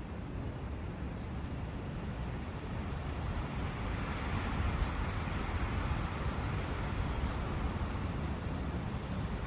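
Forest ambience with a brook running steadily, under a continuous low rumble; the rushing swells a little about halfway through.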